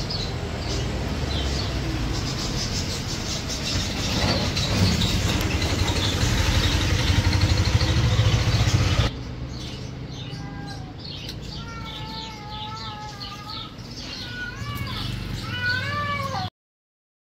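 Steady loud background noise with scattered clicks that drops off abruptly about nine seconds in. Short, high wavering calls that rise and fall follow, and the sound then cuts out shortly before the end.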